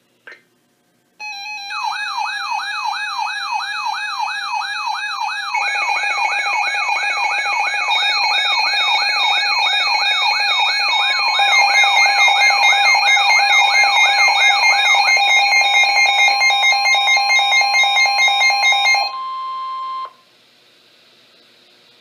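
Several NOAA weather alert radios sounding their alarms at once for a blizzard warning: a warbling siren about two and a half sweeps a second over steady and pulsing beeps, with more tones joining partway through. The broadcast's steady 1050 Hz warning tone runs under them. The alarms cut off near the end, leaving a faint hum.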